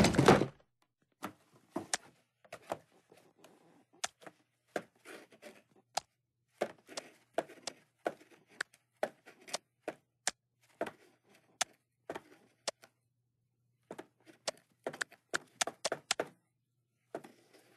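A long, irregular series of sharp taps and knocks, some single and some in quick clusters of two or three, over a faint steady low hum.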